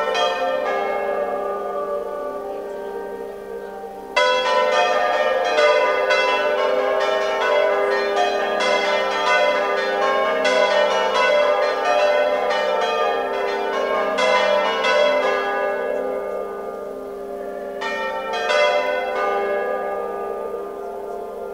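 A set of church bells swung and rung by hand by a team of bell ringers. The bells strike in overlapping clusters, each with a long ringing tail. The ringing dies down over the first few seconds, breaks into a dense peal about four seconds in and keeps it up for some twelve seconds, then fades, with a short flurry of strikes shortly before the end.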